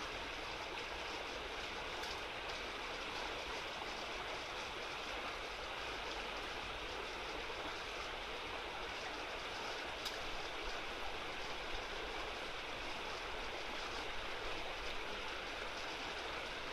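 Steady rush of flowing river water, with a faint click about two seconds in and another about ten seconds in.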